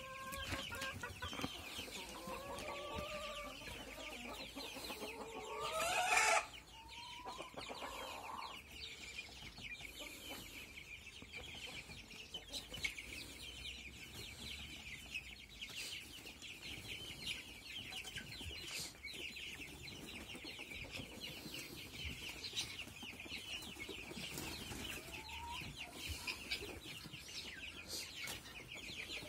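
A flock of young chicks peeping continuously in a dense, high-pitched chorus. In the first several seconds some lower calls rise above it, loudest about six seconds in.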